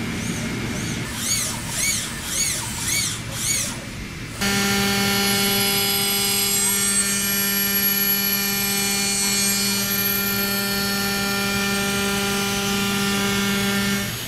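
CNC mill-turn machine cutting a steel crankshaft. First comes a run of rising-and-falling squeals, about two a second. About four seconds in, the sound changes suddenly to a loud, steady machine whine with many overtones as a milling cutter works the crankshaft.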